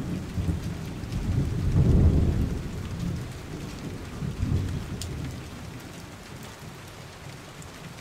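Steady rain with deep rolls of thunder. One rumble swells about two seconds in and another about four and a half seconds in, then the sound fades down to the rain.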